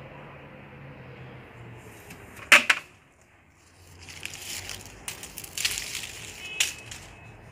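Leaves brushing and crackling against the phone's microphone as it is pushed through citrus branches, with two sharp handling knocks about two and a half seconds in, then a spell of crackly rustling in the second half.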